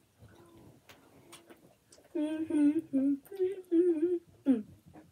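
A boy humming a short run of notes with his mouth closed, starting about two seconds in, then a single quick falling hum near the end.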